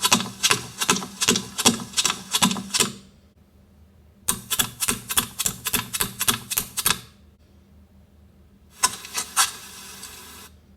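Rapid sharp clicking, about five to six clicks a second, in three runs separated by short pauses, like keys being struck in quick succession.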